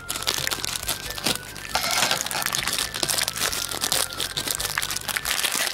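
Thin clear plastic bag crinkling and crackling as it is cut open with scissors and handled, many small irregular crackles throughout.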